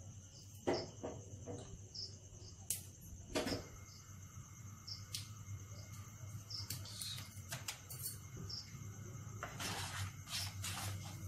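Whole spices (bay leaf, cloves, cinnamon, cardamom) sizzling faintly in melted butter in a nonstick pan, with scattered small pops and crackles over a steady low hum. Near the end a wooden spatula stirs the spices, adding a quick run of clicks and scrapes.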